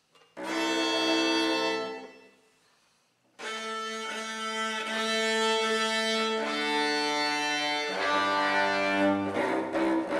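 String quartet of three violins and a cello playing bowed chords. A held chord comes in about half a second in and fades away. After a short pause, sustained chords start at about three and a half seconds and change twice, then break into shorter repeated bow strokes near the end.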